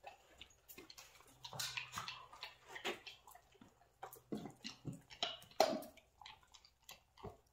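Faint, irregular knocks and scuffs of a horse's hooves and a metal hoof stand on rubber stall mats as a front hoof is set up on the stand, with one sharper knock about five and a half seconds in.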